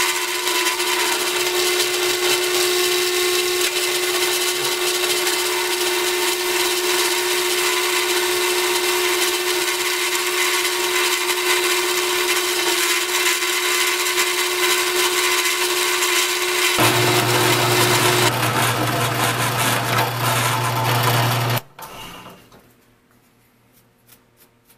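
Drill press running at about 1900 RPM with a milling bit cutting a slot in mild steel held in an XY vise: a steady whine with the rasp of the cut. About 17 s in the sound changes and a low hum comes in, and about 22 s in it stops, leaving near quiet.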